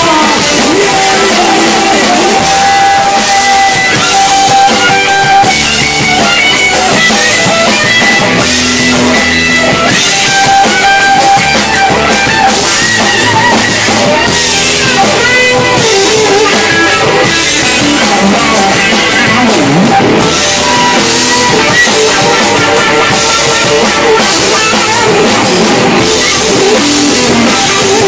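Live rock band playing loudly: distorted electric guitar and drum kit, with a singer's lead vocal.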